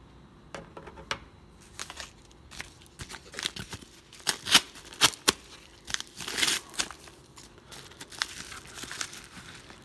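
A kraft padded bubble mailer being cut and torn open by hand: irregular paper crinkling and tearing with sharp crackles, loudest about halfway through.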